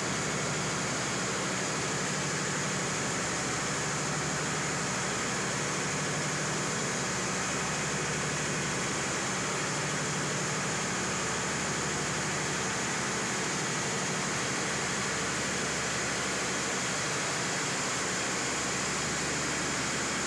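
FG Wilson P1250P3 diesel generator set running steadily at 1500 rpm under load, its 12-cylinder engine making a dense, even machine noise with a low hum underneath.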